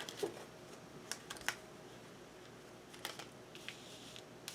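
Tarot cards being handled and drawn from the deck: a few faint, scattered light clicks and snaps of card stock.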